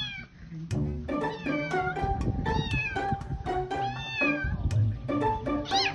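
A young kitten meowing about five times, short cries that arch or fall in pitch, over background music.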